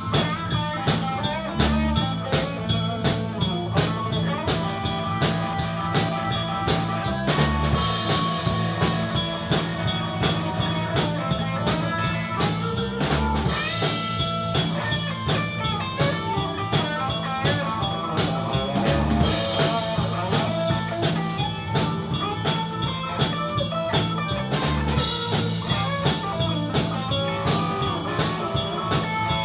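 Live blues band playing an instrumental passage: electric bass, drum kit and electric guitars over a steady beat.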